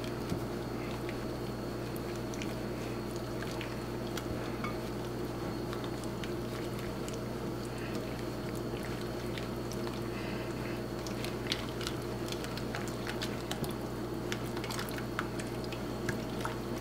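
A wire whisk beating egg batter in a glass bowl: soft wet squishing with scattered light ticks of the wires against the glass, over a steady low hum.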